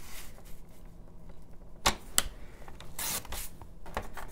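Sliding-blade paper trimmer cutting a sheet of patterned paper: two sharp clicks a little under two seconds in, then a brief swish of the blade running through the paper about three seconds in, followed by a few lighter clicks.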